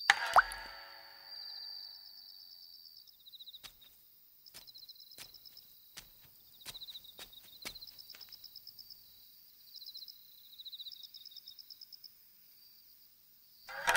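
Insects chirping in rows of short, fast-pulsed high trills, like a night garden's crickets, with a scattered run of sharp clicks in the middle. At the very start a loud, sharp plucked note bends upward in pitch.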